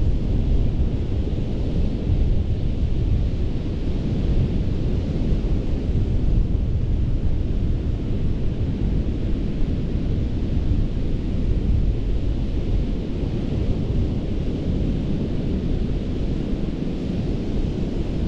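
Surf breaking steadily on a sandy Gulf beach, a continuous wash of hiss over a deep rumble, with wind buffeting the microphone.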